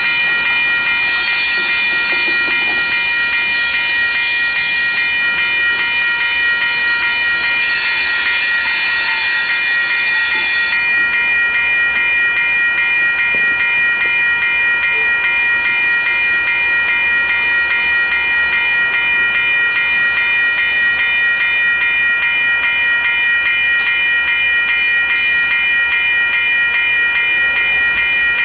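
Railroad grade-crossing bell ringing in a fast, steady, unbroken rhythm while a BNSF diesel freight train rumbles through the crossing.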